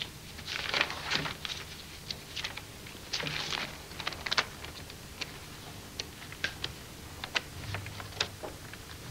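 A pencil drawing on paper: short scratchy strokes, the longest about a second in and at about three and a half seconds, among many light, sharp clicks.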